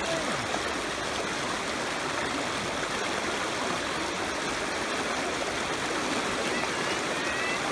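Shallow river rapids rushing steadily over rocks, a continuous even rush of white water.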